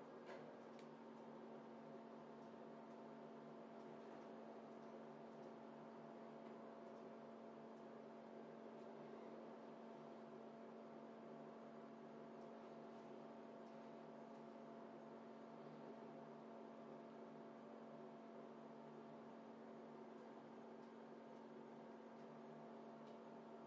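Near silence: a faint steady electrical hum in the room, with a few faint ticks.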